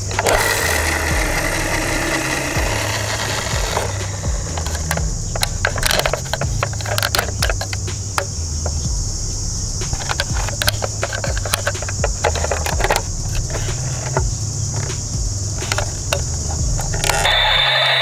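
A plastic toy ambulance being handled, with scattered clicks and knocks from its plastic body and hinged rear doors. Near the end a press of one of its buttons starts the toy's battery-powered sound unit: a loud, steady electronic tone with a noisy hiss.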